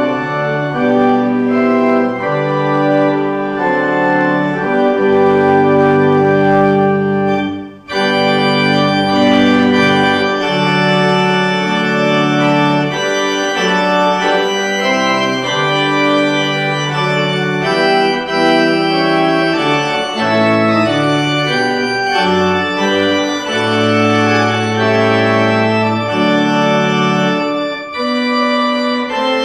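Church organ playing slow, sustained chords, with a short break about eight seconds in before the music goes on.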